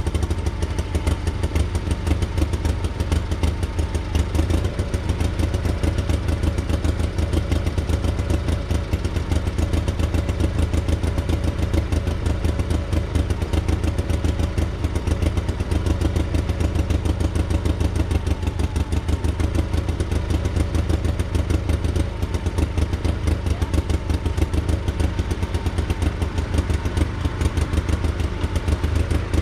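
Case 1816C skid steer's gasoline engine running steadily with a fast, even beat, freshly started on booster cables.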